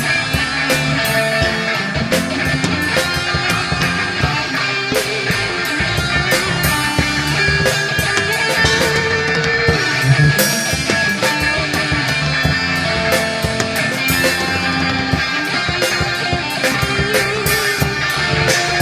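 Rock band playing live: electric guitar, bass guitar and drum kit in an instrumental passage with steady drum and cymbal hits.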